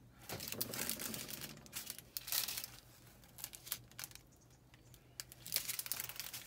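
Plastic bags of square resin diamond-painting drills crinkling as they are handled and turned, in irregular rustles, with a quieter stretch in the middle.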